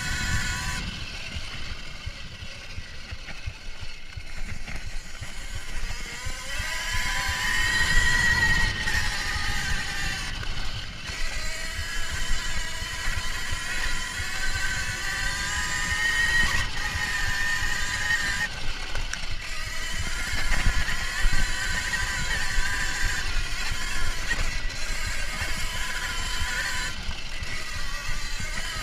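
Electric motor of a 14 kW Kuberg Ranger electric dirt bike whining under way, its pitch rising and falling as the rider speeds up and slows. Under the whine runs a steady low rumble.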